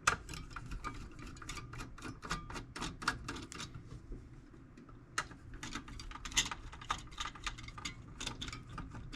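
Metal toolbox lock being unscrewed: a run of irregular small metallic clicks and taps, several a second, thinning out for a moment around the middle, as the four screws holding the locking mechanism are worked loose.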